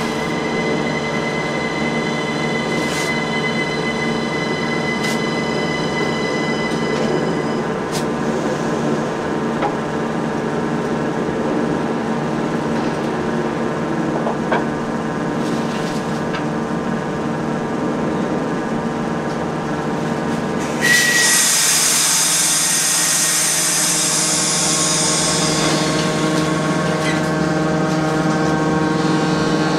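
Interior of a modernised SNCB AM80 electric multiple unit running on the line: a steady whine of several held tones from the traction equipment over the rumble of the running gear. About 21 seconds in, a sudden louder rush of hiss sets in and fades over a few seconds, and the whine shifts in pitch.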